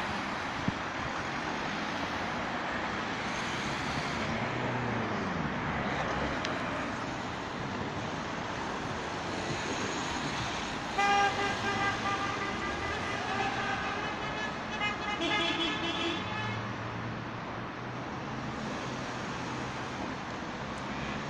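Steady road traffic around a roundabout, with car horns honking several times in the middle stretch. The first blast, about halfway through, is the loudest.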